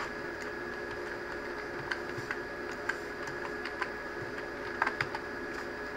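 Computer keyboard keys tapped in short, irregular clicks as a password is typed, starting about two seconds in, over a steady background hum.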